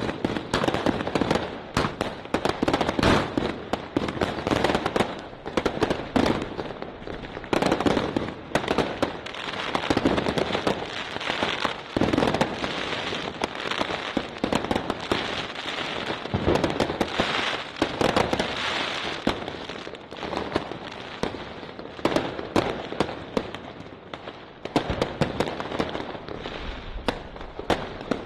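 Rubro Sledgehammer consumer fireworks compound box (cake) firing a rapid, unbroken stream of many shots with light bursts, crackling all the while.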